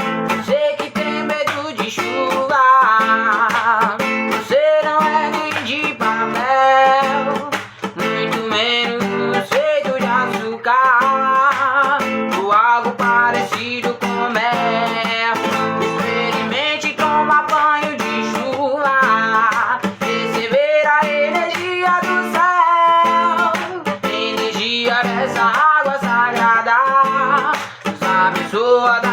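Acoustic guitar strumming steadily, with a bending melody line over it, in an instrumental passage of a song.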